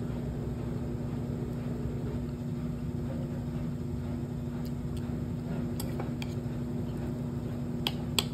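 Steady mechanical hum of a washing machine running through a wash. A few light clicks of cutlery on a bowl come in the second half.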